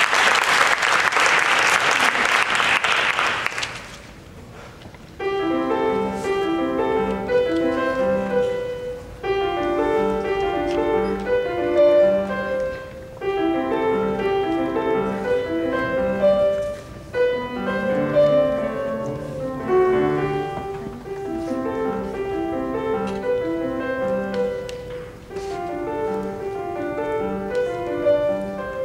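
Audience applauding for about four seconds; then, a second later, a Yamaha grand piano starts a solo piece, played in short phrases with brief breaks every four seconds or so.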